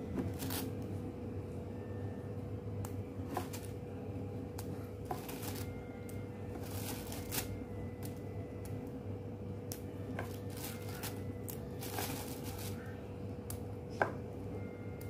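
Plastic shopping bag crinkling and rustling in short, scattered bursts as green chillies are taken out and laid into a plastic storage box lined with paper towel, with one sharper tap near the end. A steady faint hum runs underneath.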